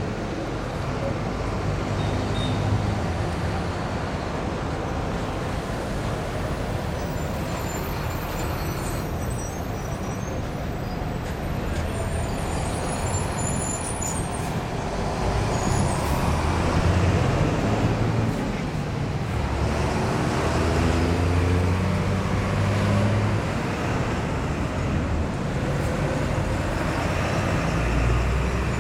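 Steady city road traffic: cars and buses running past, with engine rumble and tyre noise. Brief high squeals come and go around ten to fourteen seconds in, and a heavy engine pulls away with rising pitch about twenty seconds in.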